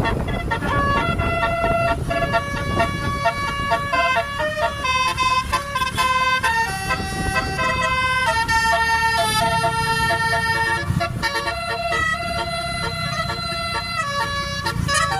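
Tour bus basuri (telolet) musical horn playing a tune: a string of held notes stepping up and down about every half second, over a low vehicle rumble.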